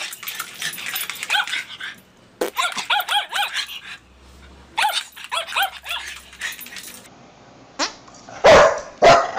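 Small dog yapping, three runs of quick high-pitched barks and yips. Near the end come two much louder, deeper bursts.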